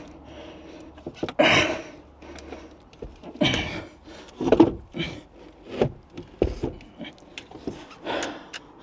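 Handling noise of a heavy AGM leisure battery and its cables being worked into place in a wooden battery box: irregular knocks, scrapes and rustles, with some puffs of heavy breath.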